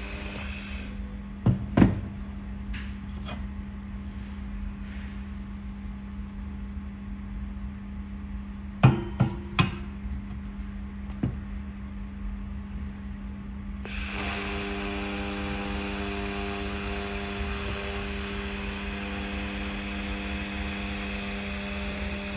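Handheld fiber laser welding machine humming steadily, with a few sharp metallic knocks. About two-thirds of the way through, a louder steady hiss with a faint whine sets in.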